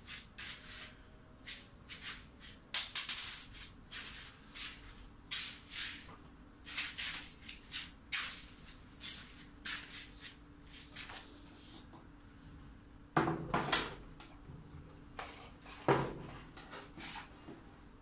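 Scattered clicks, knocks and rubbing from plastic parts and cables being handled on a workbench, with a louder knock about three seconds in and two more later on.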